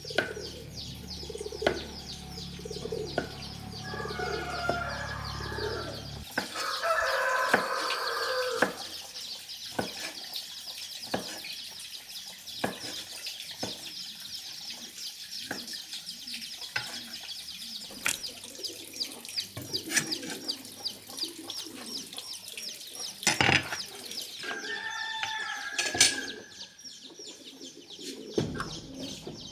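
Chickens clucking and a rooster crowing, over a steady high trill and scattered clicks and knocks.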